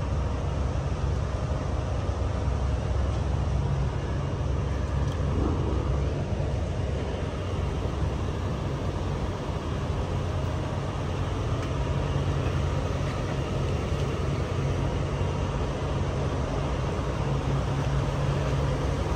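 Fireboat's diesel engines running steadily, a low even rumble.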